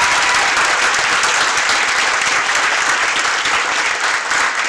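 Audience applauding, steady and loud.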